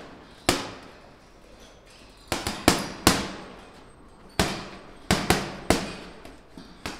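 Boxing-gloved punches smacking a hanging teardrop heavy bag: about nine sharp slaps, some in quick two- and three-punch combinations, each with a short echo. They are quick snapping 'stinging' punches rather than pushing shots.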